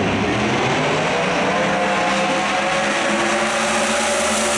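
Two drag radial race cars launching off the line together and accelerating at full throttle, the engine note climbing steadily in pitch as they run down the track.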